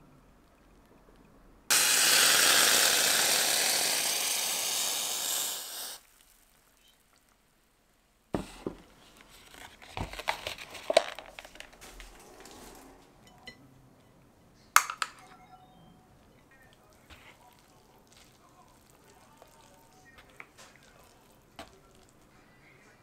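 A stream of water runs for about four seconds, then stops suddenly. After that come scattered light clicks and clatters of kitchenware being handled, with one sharp click.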